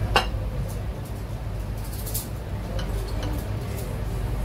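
Metal cutlery clinking on dinner plates: one sharp clink just after the start, then a few lighter clicks and scrapes, over a steady low hum of restaurant background.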